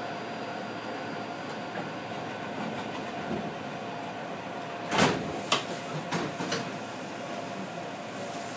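Steady hum inside the cab of a standing Iyotetsu 3000 series (ex-Keio Inokashira 3000) electric train, with a thin steady tone. About five seconds in there is one loud sharp clack, followed by a few lighter clacks over the next second and a half.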